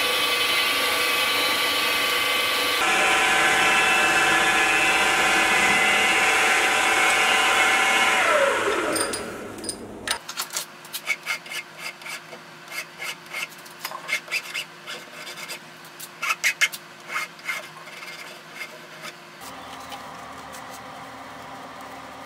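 A milling machine's end mill cuts the edge of a 5005 aluminium plate held in a vise, with a steady multi-tone spindle whine that winds down about eight seconds in. Then a hand file rasps along the aluminium edge in a run of quick strokes, taking off the burrs the milling left.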